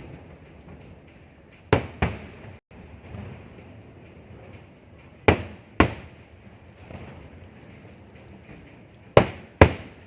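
Fireworks exploding: three pairs of loud, sharp bangs spaced a few seconds apart, the two bangs in each pair a fraction of a second apart, with faint small pops in between.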